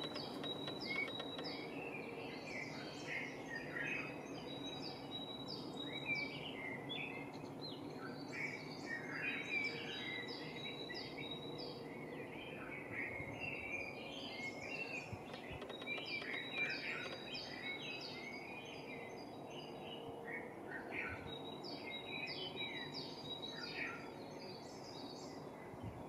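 Dawn chorus of several songbirds: many overlapping chirps, trills and short song phrases, over a steady low background hum.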